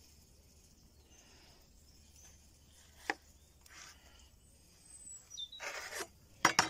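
A large knife cutting through a cheeseburger on a wooden plank: a sharp tap about three seconds in, a rasping cut near the end, then two loud knocks of the blade against the wood just before the end.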